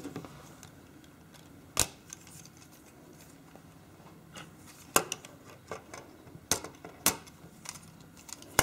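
Plastic LEGO Technic parts clicking and clattering as the model is picked up and handled. It is a series of irregular sharp clicks and small ticks, the loudest coming about two, five and eight and a half seconds in.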